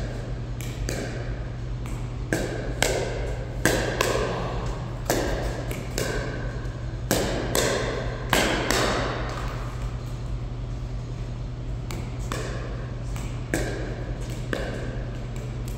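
Paddles hitting a plastic pickleball back and forth in a warm-up: sharp hollow pops every half second to a second and a half, some in quick pairs, with a pause of a few seconds midway.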